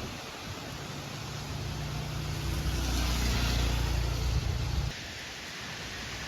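A motor vehicle's engine runs for about four seconds and grows louder before cutting off suddenly, over a steady hiss of typhoon rain and wind.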